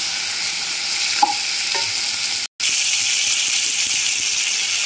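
Chopped onions and tomatoes sizzling in hot oil in a kadhai, a steady frying hiss, stirred with a wooden spatula that gives a few light scrapes. The sound cuts out for an instant about two and a half seconds in.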